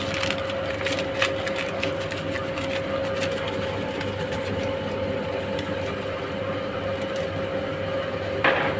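A steady mechanical hum with a constant tone running throughout, with scattered light clicks in the first few seconds and a short rushing sound near the end.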